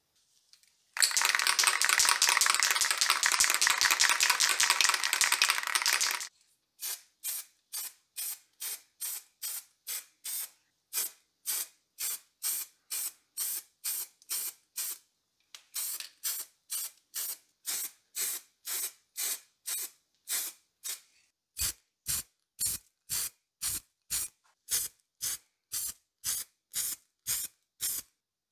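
Würth aerosol spray paint can spraying black paint: one continuous hiss of about five seconds, then a long run of short, evenly spaced spray bursts, about two to three a second, with a brief pause partway through.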